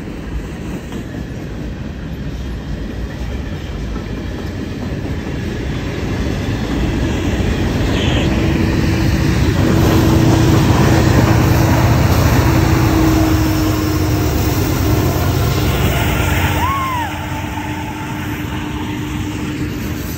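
Freight train cars rolling past close by: a steady rumble and clatter of steel wheels on the rails. It grows louder toward the middle and drops off suddenly about three-quarters of the way through.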